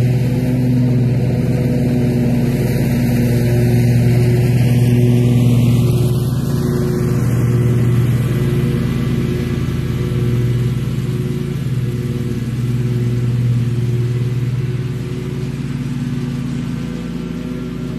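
Bob-Cat XRZ zero-turn mower's engine running steadily with its deck cutting tall, thick grass. It passes close by, then moves away and grows slightly fainter near the end.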